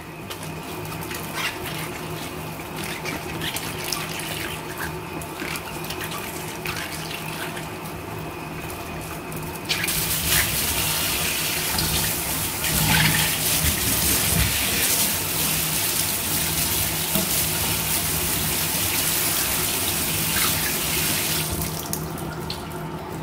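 Tap water running into a stainless steel sink and over a plastic colander as mustard green stalks are rinsed by hand, with small splashes and knocks from the stalks. About ten seconds in the flow turns much louder, and it drops back near the end.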